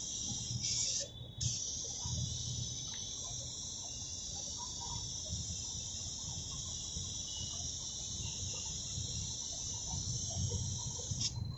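Gravity-feed paint spray gun hissing steadily as it sprays the bumper. The hiss cuts off briefly about a second in and again near the end, where the trigger is let go between passes.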